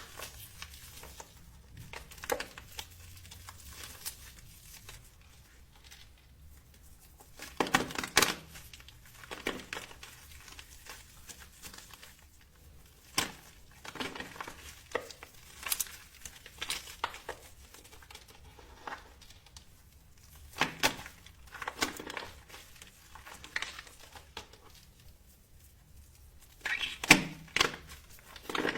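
Bar soap being cut or crushed up close: crisp crunching and crackling at irregular moments, with louder clusters about eight seconds in and near the end.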